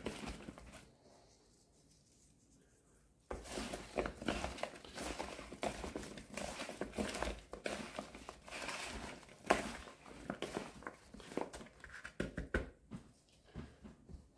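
A gloved hand tossing oil-coated raw potato sticks in a bowl. After about three seconds of near silence comes a busy run of soft clicking, rustling and crinkling, which thins out near the end.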